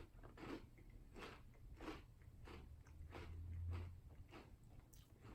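Faint, rhythmic chewing of a mouthful of Chips Ahoy! cereal in milk, about one chew every half second or so, with a soft low hum swelling briefly in the middle.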